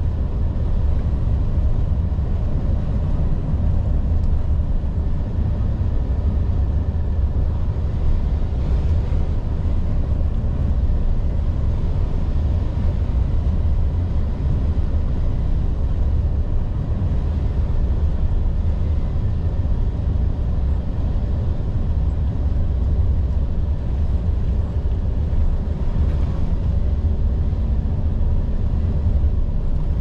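Volvo FH 460 truck's 13-litre six-cylinder diesel and road noise, a steady low rumble while driving at a constant pace.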